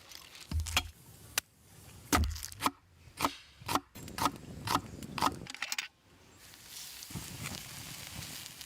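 A series of sharp knocks or chops, roughly two a second, stopping after about five seconds, followed by a steady hiss.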